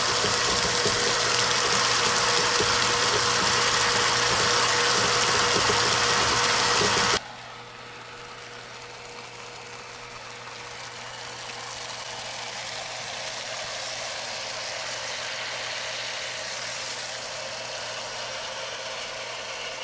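Shallow-well water pump running with a steady mechanical hum. The sound stops abruptly about seven seconds in, leaving a quieter steady hiss.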